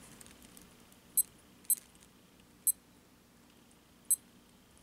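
Naviforce NF9050M digital watch beeping four times, short high-pitched beeps at uneven intervals, as its mode button is pressed to step through the display modes back to the standard time display.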